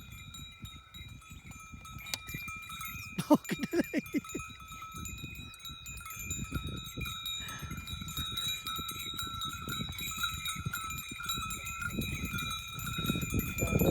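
Bells on a pair of working bulls ring steadily as the bulls pull a leveller, over low scraping and trampling from the field. A short rapid call about three seconds in is the loudest sound.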